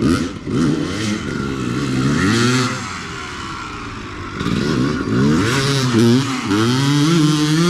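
Dirt bike engine revving up and easing off again and again as it is ridden hard around barrels, its pitch falling sharply a few times in the second half as the rider shifts or rolls off the throttle into the turns.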